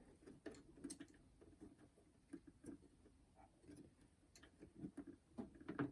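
Near silence with faint, scattered plastic clicks and ticks from the jammed cassette door of a boombox being pulled and pried open.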